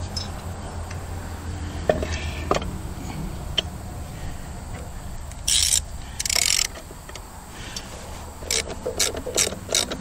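A hand-worked ratchet clicking in a quick run of several clicks a second near the end, as one end of a log on a sawmill bed is jacked up to level the pith. Before it come a few scattered metal knocks, and about halfway through two short rasping bursts.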